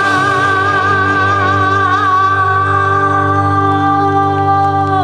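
Live rock band holding a long sustained chord, with a long steady held note over it, as a song draws to its close; the held note stops right at the end.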